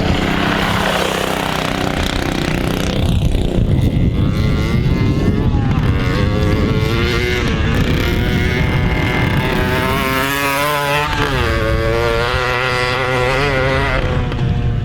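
Small single-cylinder mini bike engine running under riding throttle, its pitch wavering and swinging up and down as it revs, over a rough rumble of wind and ground noise.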